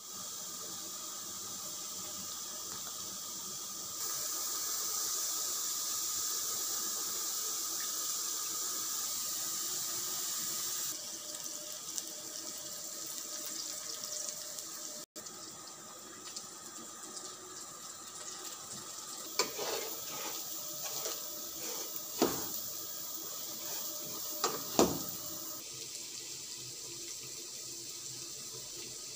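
Food frying in oil in a nonstick pan: a steady sizzle, with a few sharp knocks of a wooden spatula against the pan in the second half.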